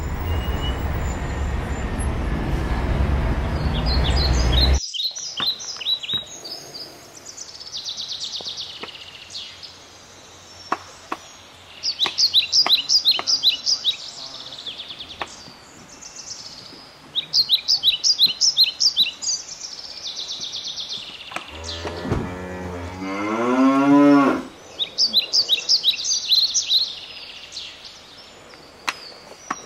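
Steller's jays calling in quick series of rapid, harsh repeated notes, several times over, after a steady rushing whoosh that cuts off about five seconds in. About two-thirds of the way through, a long, low, wavering call rises and then falls over about three seconds, louder than anything else.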